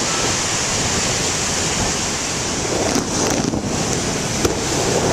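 Big ocean waves breaking: a steady, heavy surf roar, with wind on the microphone.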